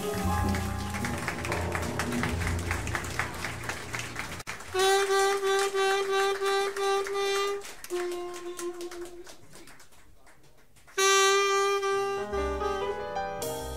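Live jazz quartet. The close of one tune ends in a sudden cut about four and a half seconds in, and the next tune opens with tenor saxophone playing long held notes. The bass comes back in near the end.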